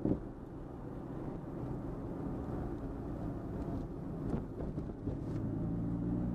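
Car engine and road noise heard from inside the cabin while driving, a steady low hum whose engine note grows a little stronger in the second half.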